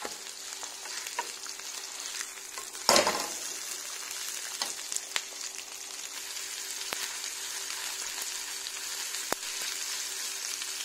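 A beef steak frying in butter and oil in a pan: a steady sizzle with scattered sharp pops. There is one loud knock about three seconds in, over a faint steady hum.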